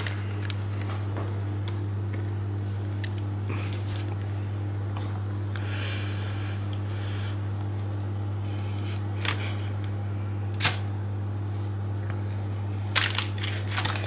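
A steady low hum, with soft scraping and crinkling as a silicone spatula spreads thick brownie batter across a baking-paper-lined tray, and a few sharp clicks near the end.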